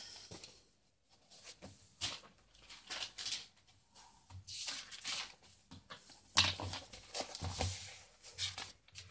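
Sheets of paper rustling and sliding on a tabletop as they are handled and moved about, in irregular bursts, loudest a little past the middle.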